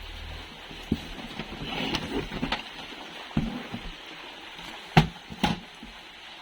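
A few sharp knocks and clicks over a steady hiss, with some rustling about two seconds in; the loudest two knocks come close together about five seconds in.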